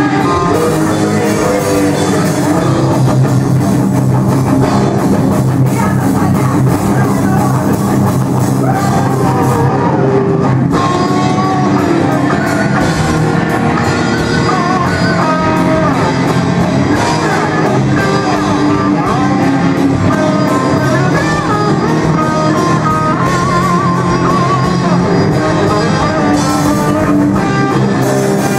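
Live rock band playing loudly, with an electric guitar close to the microphone.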